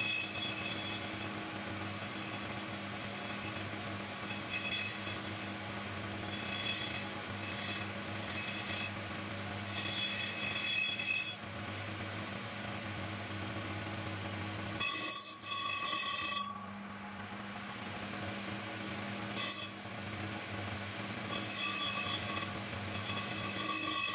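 Homemade single-speed metal lathe running with a steady motor hum while a carbide tool cuts thick metal plate, squealing high-pitched in repeated stretches of a second or two.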